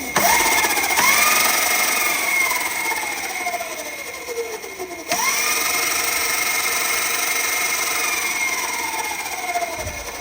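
Stock 24-volt electric scooter motor, double overvolted on a 48-volt battery, whining up to speed twice and winding down slowly after each burst, the second about five seconds in.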